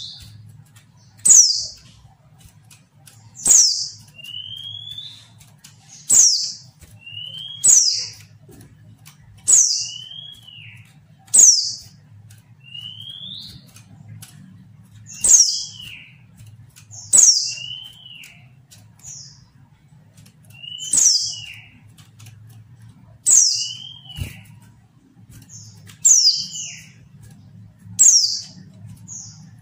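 Female white-eye (pleci) calling from a cage over and over, about every one and a half to two seconds. Each call is a sharp, very high note falling steeply, followed by a lower, shorter note that arches up and down. A faint low hum runs underneath.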